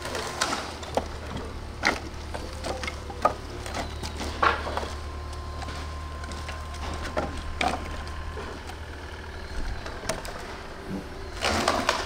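Split firewood logs knocking and clattering against each other as they are handled and stacked, in irregular single knocks with a denser burst near the end. A steady low hum runs underneath.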